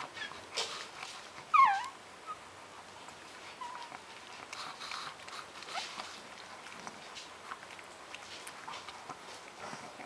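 Twelve-day-old Shih Tzu puppies at their mother: one puppy gives a short squeal that falls in pitch about one and a half seconds in, with a few fainter squeaks, and soft scattered clicks and rustles as they nurse.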